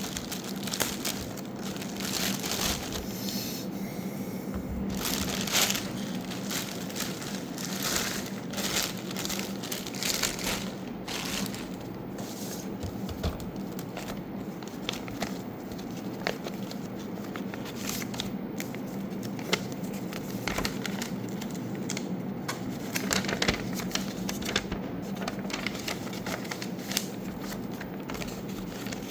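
Packaging of a gaming mouse being handled and unwrapped: continuous crinkling and rustling, broken by many scattered sharp clicks and crackles.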